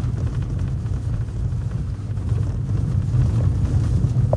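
Steady low rumble of a car's engine and tyres, heard from inside the cabin, as it drives along a rough dirt track with snow on it.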